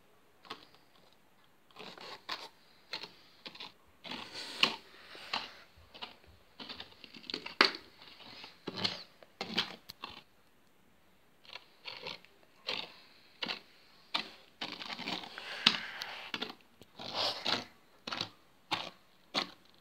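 Plastic Schleich toy horse figure moved by hand across a gritty arena floor: irregular taps and crunchy scuffs as its hooves are knocked and dragged through the footing.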